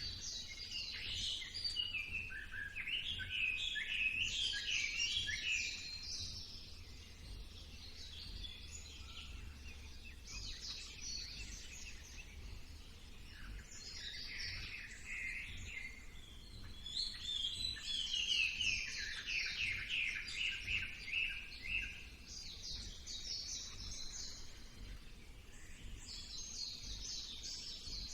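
Songbirds singing: phrases of fast, high trilled notes come every few seconds, loudest near the start and again a little past the middle, over a faint low rumble.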